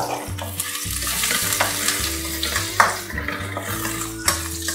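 Sliced shallots, curry leaves and green chillies sizzling in hot oil in a metal kadai. A metal spatula stirs them, scraping and clinking against the pan several times, with one sharp scrape about three seconds in.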